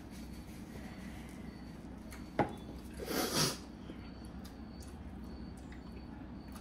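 Quiet room with a steady low hum, broken by a sharp click a little over two seconds in and, about half a second later, a short hard breath from someone eating very spicy food.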